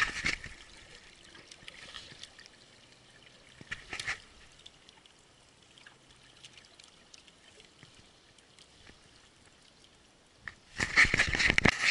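Water trickling and lapping against a small wooden boat, with brief splashes at the start and about four seconds in. Near the end a loud, continuous churning of water starts up as the 55 lb electric trolling motor runs again after its breaker tripped.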